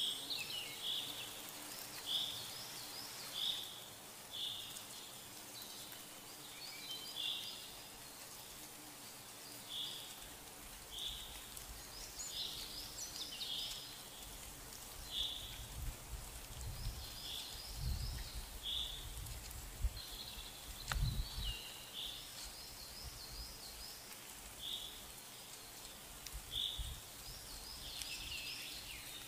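Outdoor ambience of high, short chirps repeated about once a second, with bursts of quicker, higher twittering. A low rumble comes in about halfway through.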